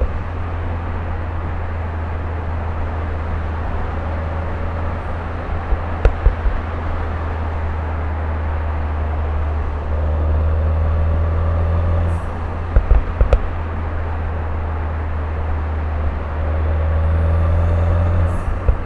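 Turbocharged Mini Cooper engine heard while driving: a steady low drone that swells twice under throttle. Each swell is followed on lift-off by a quick cluster of sharp exhaust pops, and there is one more single pop about six seconds in.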